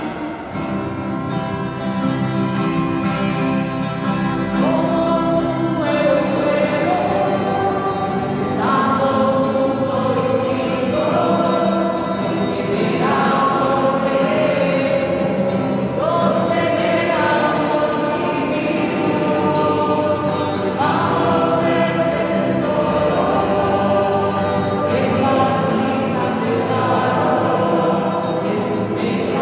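A group of voices singing the entrance hymn of a Catholic Mass, with sustained chords that change every couple of seconds.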